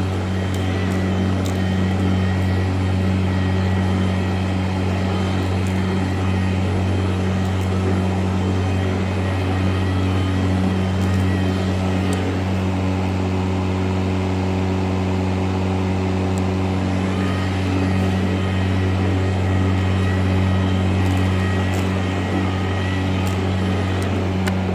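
EGO LM2156SP cordless electric lawn mower running steadily, blades spinning and self-propel engaged on its first speed, deck set at its highest so it is not cutting grass. A steady low hum with a fainter higher whine above it.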